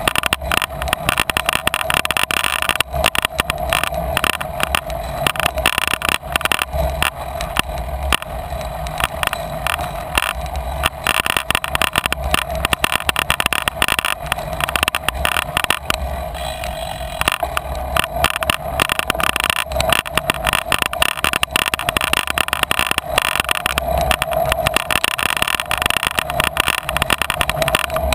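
Bicycle riding over a bumpy dirt-and-grass track: constant dense rattling and knocking from the bike over the rough ground, with tyre noise underneath.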